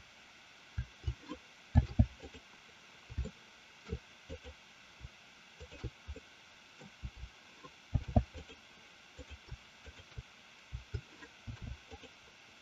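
Irregular soft clicks and low thumps of a computer mouse and keyboard being worked: repeated key presses and mouse clicks, with a couple of louder knocks about 2 and 8 seconds in.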